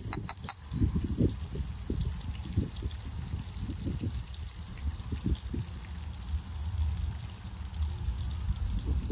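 Sliced onions sizzling in oil on a steel cooking disc over a fire, a steady fine crackle with an uneven low rumble beneath. A few quick ticks right at the start come from salt being shaken out of a glass jar.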